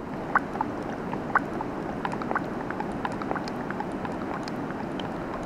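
Water running and bubbling in a steady stream, with many small scattered plinks of droplets.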